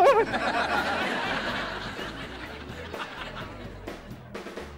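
Sitcom laugh track: a crowd of audience laughter that is loudest right away and dies down over about three seconds, after a brief wavering vocal cry at the very start.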